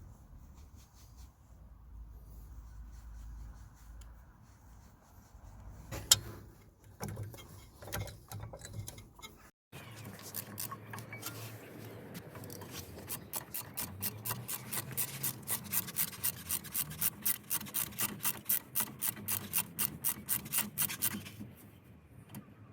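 Ratchet wrench clicking rapidly and evenly, about five clicks a second, as a brake caliper guide pin bolt is screwed in. Before that, softer rubbing and a few knocks as the greased guide pin is pushed into the caliper.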